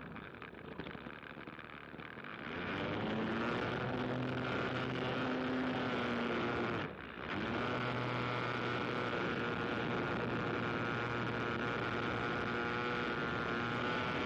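Aircraft engine droning at a steady pitch. It swells louder about two seconds in and cuts out for a moment about seven seconds in.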